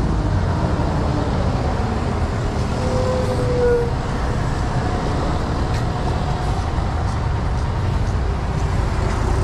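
Steady roadside traffic noise from cars, buses and motorcycles passing on a busy multi-lane city road, heaviest in the low rumble. A short tone sounds briefly about three seconds in.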